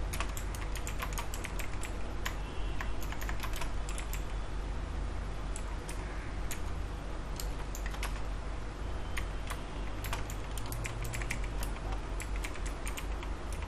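Typing on a computer keyboard: irregular runs of keystroke clicks with short pauses between them, over a low steady hum.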